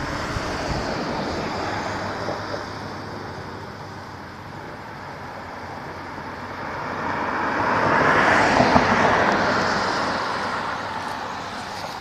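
A road vehicle passing by: its noise swells to a peak about two-thirds of the way in, then fades, over a steady background of outdoor noise.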